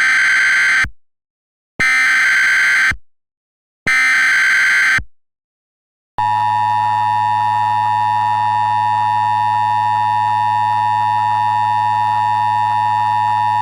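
Emergency alert SAME header: three short screeching digital data bursts, about a second each with a second's gap between, then the NOAA Weather Radio 1050 Hz warning alarm tone held steady for about eight seconds. It introduces a tornado watch bulletin.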